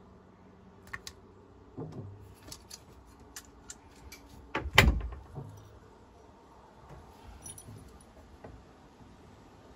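Light metallic clicks and clinks from handling a stainless steel deck water filler and a caulking gun on a steel boat deck, with one louder knock about five seconds in.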